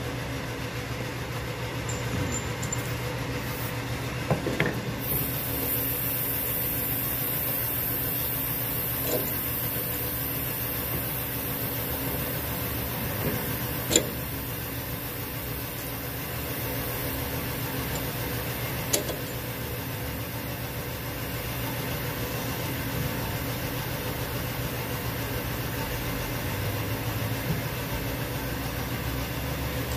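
Tractor diesel engine idling steadily. A few sharp metallic clicks come from the PTO driveshaft yoke being worked on the rotary tiller's gearbox input shaft, the loudest about halfway through.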